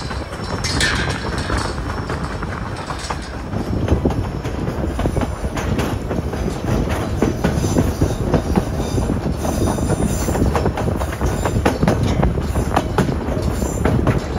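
White Pass & Yukon Route narrow-gauge train cars running on the rails: steady rumble and rattling wheel clatter, with a brief falling high squeal about a second in.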